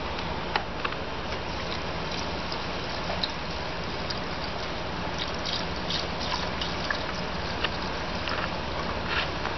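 Brine being poured into a jar: a steady stream of liquid filling it, with small splashes and drips throughout.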